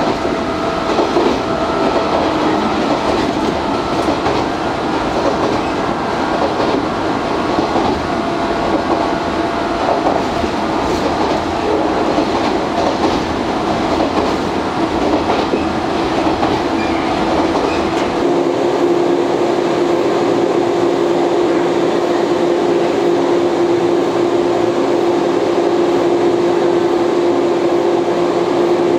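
Running noise inside a JR West 113-series motor car (MoHa 113) at speed: a loud mix of motor and running-gear noise, with wheels clattering over rail joints. About two-thirds of the way through, it gives way to a steady hum from the train standing at a platform.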